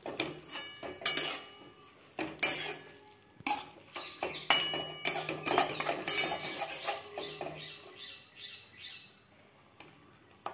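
A flat metal spatula scraping and knocking against a metal kadai while stirring a thick, cooked vegetable curry. The strokes come irregularly, about one a second, and grow quieter near the end.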